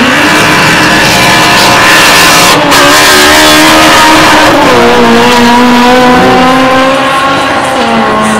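Honda Civic hatchback drag car running flat out off the start line down the strip. The engine note climbs hard in pitch, drops briefly at gear changes about two and a half and four and a half seconds in, then pulls on loud and fairly steady as the car goes away.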